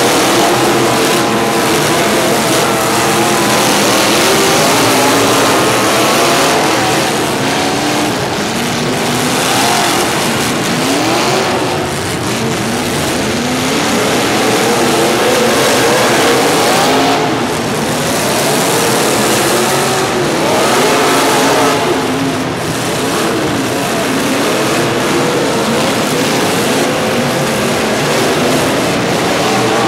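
Several motor-vehicle engines running and revving at once, their pitches rising and falling and overlapping, over a steady loud rush of noise.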